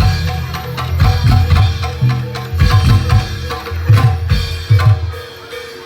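Javanese gamelan music accompanying a barongan dance: kendang hand drums beating in quick, uneven strokes over steady ringing gong tones.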